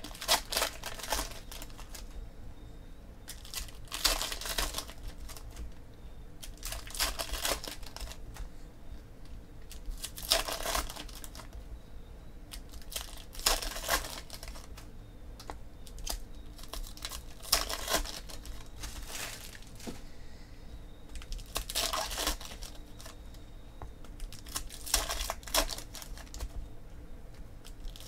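Foil wrappers of 2014 Panini Prizm football card packs being torn open and crinkled by hand, in short rustling bursts every few seconds.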